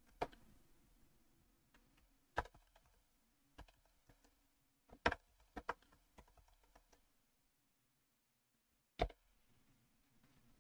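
Scattered computer keyboard keystrokes: single short clicks, mostly a second or more apart, with a quick pair about five and a half seconds in and a louder stroke about nine seconds in.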